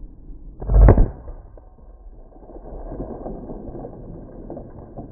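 A single rifle shot about a second in, heard as one short, heavy boom.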